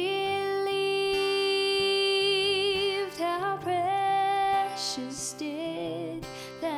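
Slow, gentle song: a singer holds one long note with vibrato for about three seconds, then moves on through shorter notes of the melody over a soft accompaniment.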